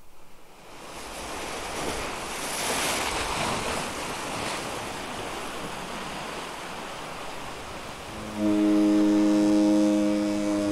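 Surf sound effect of waves washing in, swelling up from silence. About eight seconds in, a loud sustained low horn chord enters over it, shifting to a new chord near the end.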